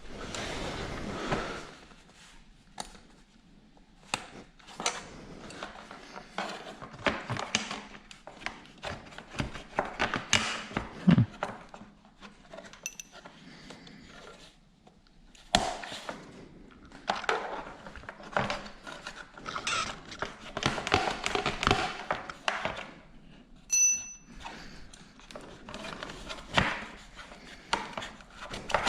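Intermittent knocks, clicks and scraping of hands and tools working on motorcycle parts, with a short metallic ping about three-quarters of the way through.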